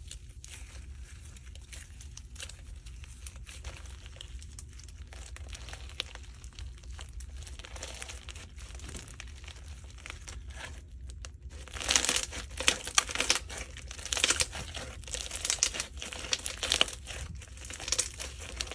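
Blue slime packed with white foam beads being kneaded and stretched by hand, giving a dense crinkly crackling as the beads pop and shift. About twelve seconds in the crackling turns much louder and denser.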